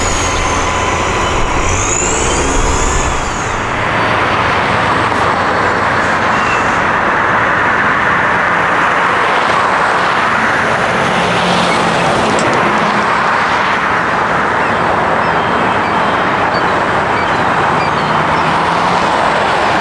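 A rear-engined regional jet's turbofans whine on the runway, with gliding whistle tones, for about the first three seconds. Then a Boeing 737 MAX 8 on final approach takes over, its CFM LEAP-1B turbofans making a steady, loud rushing jet noise.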